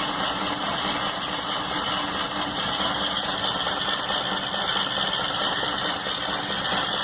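Volkswagen Beetle air-cooled flat-four engine turned over steadily by its starter motor with the spark plugs out, spinning without firing to circulate oil through the freshly assembled engine.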